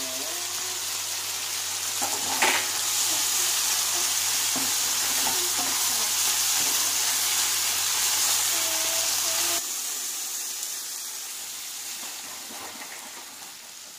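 Prawns and lata stems sizzling in a non-stick wok as they are stirred with a spatula, with a scrape about two and a half seconds in. A cut about ten seconds in leads to a quieter hiss of the curry simmering in its sauce, fading down.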